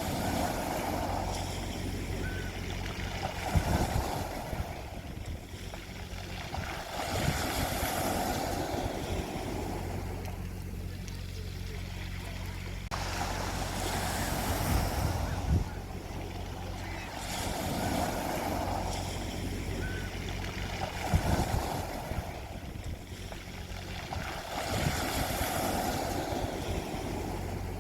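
Sea waves washing onto a beach, the surf swelling and falling back every few seconds over a steady low rumble.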